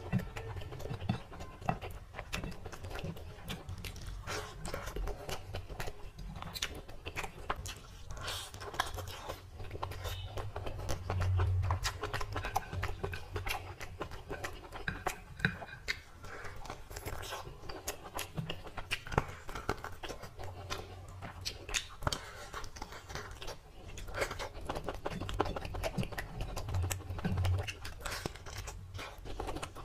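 Eating sounds: fingers squishing and mixing rice with curry on a plate, with many small wet clicks, scrapes and chewing. A handful goes into the mouth near the end.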